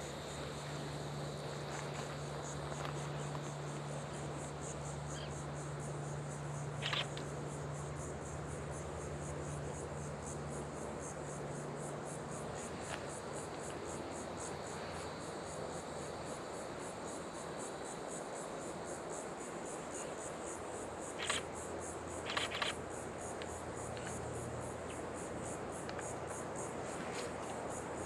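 Insects trilling steadily in a fast, high-pitched pulse from the swamp. A few sharp camera-shutter clicks stand out over it, once about a quarter of the way in and a few more about three-quarters of the way through.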